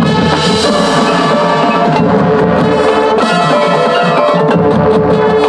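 Marching band playing, with brass holding sustained chords over front-ensemble mallet percussion and drums.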